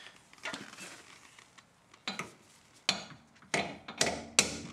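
Hammer blows on a stuck suspension bolt, driving it out of the knuckle: five sharp metallic strikes with a short ring, starting about two seconds in and coming about every half second, the later ones louder.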